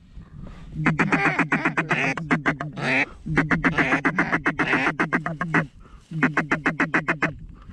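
Duck call blown in three quick runs of short, even quacks, about nine a second: a feed-call chatter to bring ducks into the decoys.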